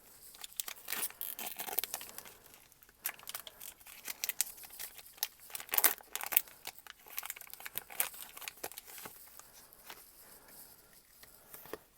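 Foil booster pack wrapper crinkling and rustling in the hands as it is opened, with many irregular sharp crackles, the busiest about halfway through.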